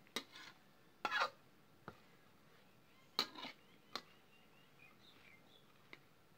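Metal spatula scraping and clacking against a metal pan while stirring a heap of fried crickets: a few short scrapes and clicks, the loudest about a second in and just after three seconds.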